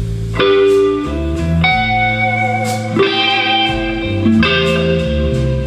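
Live rock band playing an instrumental passage: guitars sustaining notes over a bass line that moves every half second or so, with light drums.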